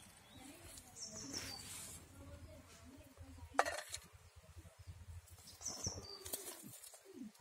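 Small birds chirping, a few short high double notes, with a single sharp tap about halfway through.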